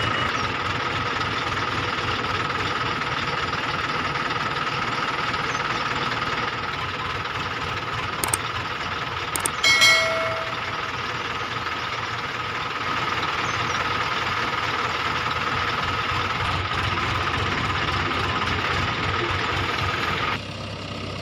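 Steady tractor-engine running sound, an even drone with a constant high hum, that stops shortly before the end. Around 8 and 9.5 seconds in come a few sharp clicks, then a short bell-like ding around 10 seconds from a subscribe-button animation.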